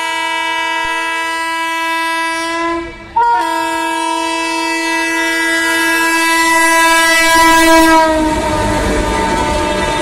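Indian Railways electric locomotive's air horn sounding two long chord blasts with a short break between them. The second blast drops slightly in pitch near its end as the train passes close, and is followed by the rumble and rattle of the coaches going by.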